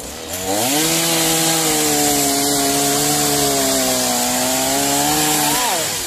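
Petrol chainsaw opened up to full throttle and cutting through a small tree trunk for about five seconds. The engine pitch sags slightly under the load, then it revs briefly and drops back to idle near the end as the throttle is released.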